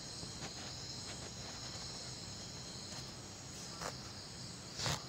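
Faint steady high-pitched insect chirring over low background hiss, with a couple of soft ticks in the second half.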